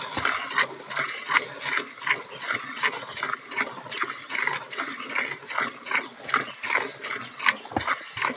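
Cow being milked by hand into a steel bucket: jets of milk squirting into the pail in a steady rhythm, about two to three squirts a second.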